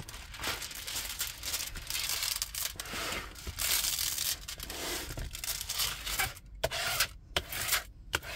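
Clear plastic cover film on a diamond-painting canvas being peeled back from the adhesive canvas and handled, crackling and crinkling in irregular bursts, with a few short pauses near the end.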